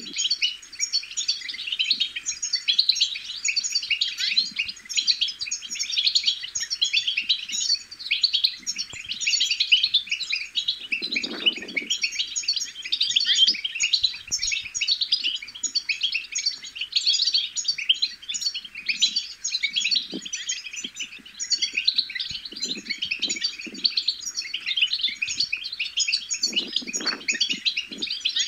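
European goldfinch twittering: a fast, continuous stream of high chirps and trills. Two soft low thumps come through, one about eleven seconds in and one near the end.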